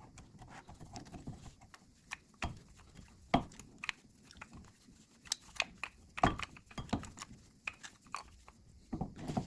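Scattered clicks and clinks of front disc-brake caliper and pad hardware being handled and fitted, with two sharper metal knocks, about three and a half and six seconds in.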